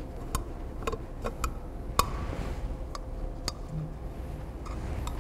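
Scattered light metallic clicks and taps, a few per couple of seconds, the sharpest about two seconds in, over a low steady hum. They come from a T-handle hex key working out the fixing bolts of a robot arm's side cover and from the cover being lifted off.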